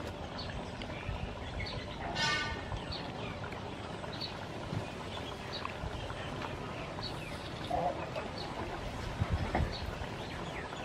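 Garden ambience with small birds chirping again and again in the background, and a brief louder call about two seconds in. A few soft low knocks come near the end.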